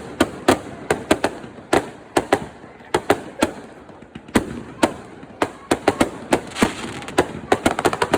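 Fireworks going off: an irregular run of sharp bangs and cracks, several a second, with a short lull about halfway and a denser cluster near the end.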